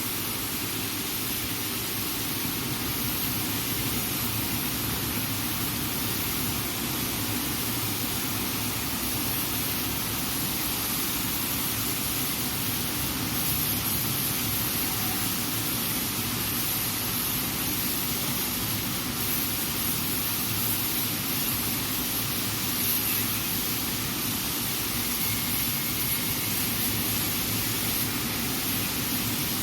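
Steady, unchanging hiss with a low hum beneath it, like running machinery or a workshop background.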